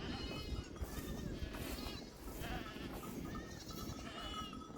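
A flock of sheep and goats bleating, with several calls overlapping one after another over a steady low background noise.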